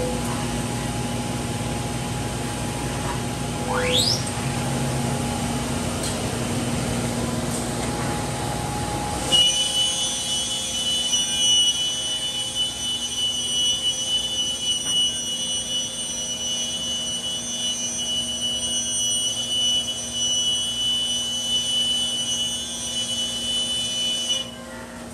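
Holz-Her Dynestic 7532 CNC router running with a steady machine hum. About four seconds in there is a single rising whine. From about nine seconds a steady high-pitched whine sets in and cuts off suddenly near the end.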